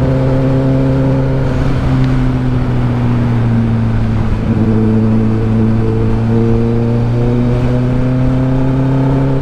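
2023 Kawasaki ZX-10R's litre-class inline-four engine running steadily at cruising revs under the rider. Its note sags a little about halfway through as the bike slows, then climbs gently as it picks up speed again toward the end.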